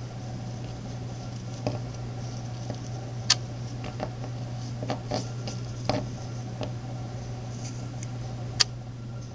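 Scattered light clicks and taps of a small glazed clay turtle whistle being turned and handled in the fingers, a handful of separate clicks over a steady low hum. The whistle is not blown.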